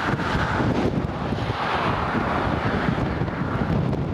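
Strong wind buffeting the microphone with a constant low rumble, and gusts rushing louder twice, briefly at the start and again for about two seconds in the middle.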